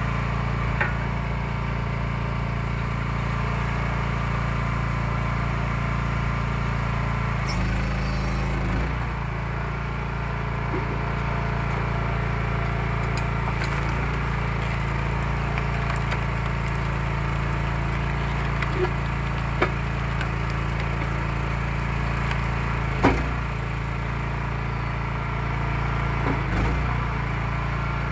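Eastonmade 12/22 hydraulic log splitter's engine running steadily, its note shifting briefly twice as the ram works, with a few sharp knocks and cracks of wood being split and dropped.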